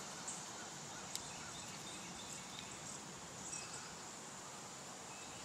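Faint outdoor ambience with a steady high-pitched insect drone, broken by a couple of faint clicks.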